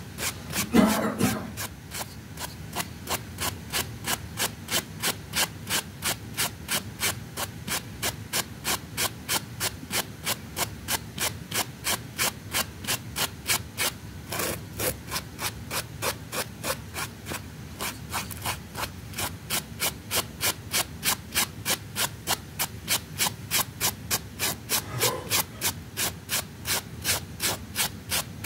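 A rug being scrubbed with a brush in quick, even back-and-forth strokes, about three a second, with a louder knock about a second in.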